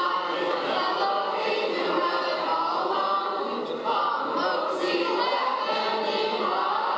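A group of guests, adults and children together, singing unaccompanied.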